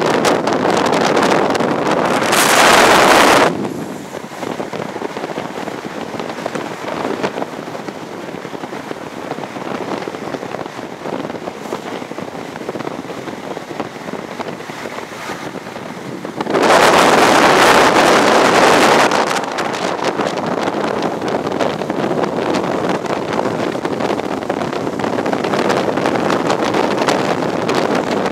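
Wind rushing over the microphone held out of the window of a moving High Speed Train, over the train's running noise. Two much louder surges of noise, one shortly after the start lasting about a second and one about halfway through lasting about three seconds.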